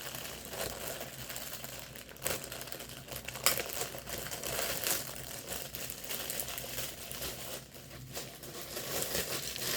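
Packaging being handled and opened: steady crinkling and rustling with a few sharp clicks and snaps.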